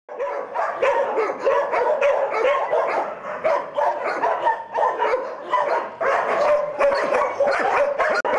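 Dogs barking and yipping, overlapping barks following one another with hardly a pause.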